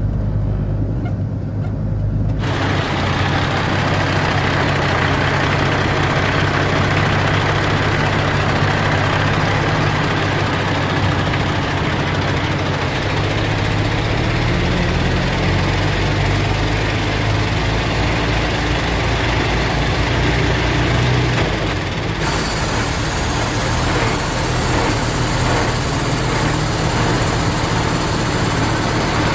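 Semi-truck's diesel engine running with wind and road noise on a camera mounted outside the cab as the truck moves. The sound changes abruptly about two seconds in and again about twenty-two seconds in.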